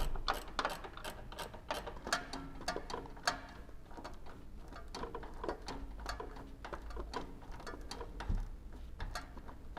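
Ratchet wrench clicking in short, irregular runs as bolts are tightened during reassembly.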